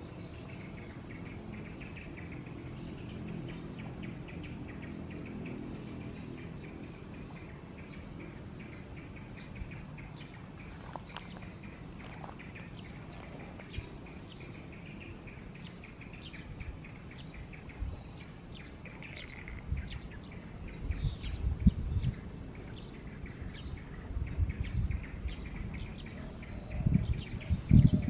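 Birds chirping and calling at intervals over a steady high buzz of outdoor background. From about twenty seconds in, several loud low rumbles and thumps break in.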